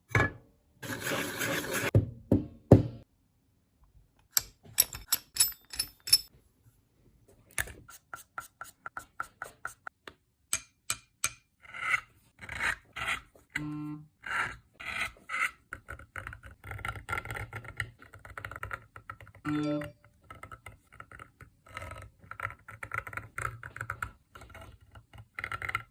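Seal-carving knife scraping and scratching on a small seal stone in short, irregular strokes, with brief pauses between runs of cuts.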